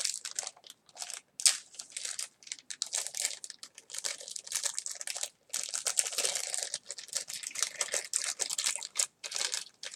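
Thin plastic packaging crinkling and tearing as small accessory bags are pulled open by hand, in irregular bursts of crackling.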